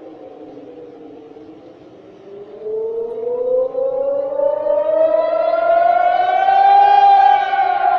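Civil-defence air raid siren sounding on a test. Its wail sits low and fairly quiet for the first couple of seconds, then rises in pitch and loudness from about two and a half seconds in, peaking near the end before starting to fall again.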